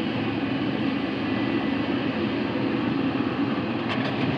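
Heavy construction machinery's diesel engines running steadily, with a few faint clicks near the end.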